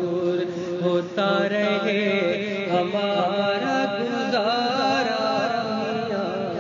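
Male voice singing a long, drawn-out melismatic line of a naat over a steady held drone, with a brief break about a second in.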